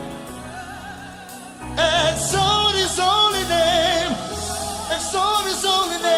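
Gospel worship song: sustained keyboard and bass notes, then singing with a wide vibrato comes in about two seconds in and carries on over the band.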